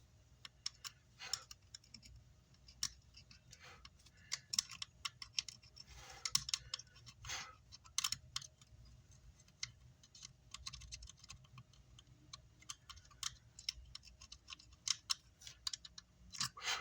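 Irregular light clicks and taps of small hand tools and parts being handled on an amplifier circuit board during soldering work, several a second, with a couple of brief scrapes midway.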